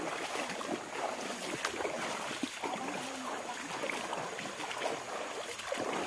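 Several people wading in boots through a shallow, rocky stream: irregular splashing and sloshing of water around their legs with each step.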